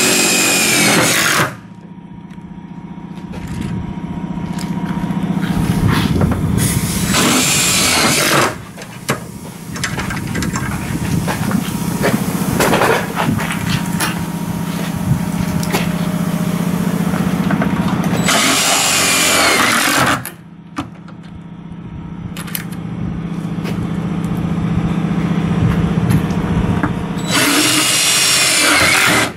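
Power drill-driver driving self-drilling screws into a bus's sheet-metal panel through an extension bit. The motor runs steadily in two long stretches with a short pause between them, and four loud harsh bursts come near the start, around 7 s, around 19 s and near the end.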